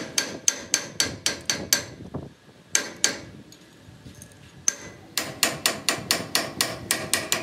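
Hammer blows on a metal truck part in quick runs: about eight strikes, then a pause with a few single blows, then another run of about ten, roughly four strikes a second.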